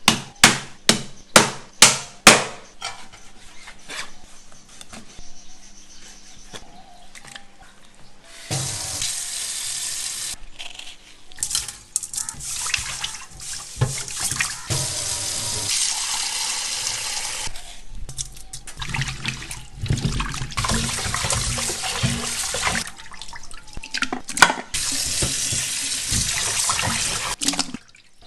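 A knife chopping fish, about six sharp strokes in quick succession at the start, then water running from a tap and splashing as the cut fish is washed, in long runs with short breaks.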